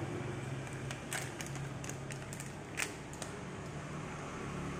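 A steady low hum, with a scattered run of light clicks and taps in the middle, a little over three per second, from small things being handled.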